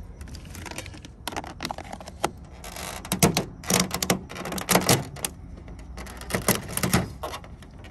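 A knife cutting through a raw spiny lobster tail's shell on a stainless steel surface: crunching, cracking clicks in several short clusters.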